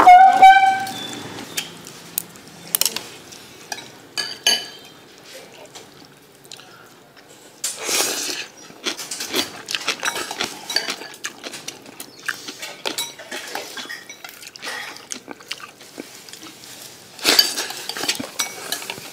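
A metal spoon and chopsticks clinking and scraping against a ceramic bowl of noodles in broth, in many short, irregular clicks, with a ringing clink just after the start. Two louder bursts of noise come about eight seconds in and near the end.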